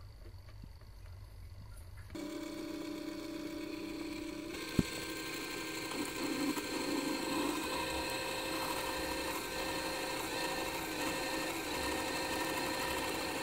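Mini metal lathe running with a steady whine of several fixed tones while a twist drill in the tailstock chuck bores into the spinning workpiece, starting about two seconds in. A single sharp click about five seconds in.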